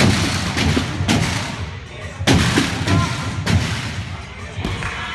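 Repeated heavy thuds of gymnasts bouncing off and landing on a tumble track, trampoline and crash mats, about half a dozen strong hits, each ringing on briefly in the large gym hall.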